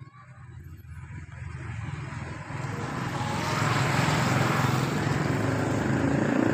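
A motor engine running and growing steadily louder, as if approaching.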